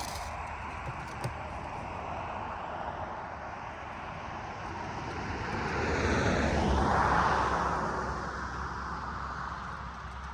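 A vehicle passing by: a steady rushing noise swells to its loudest about seven seconds in, dropping in pitch as it goes past, then fades away.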